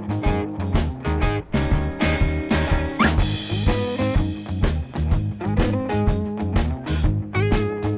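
Background music: an upbeat guitar tune over a drum kit with a steady beat.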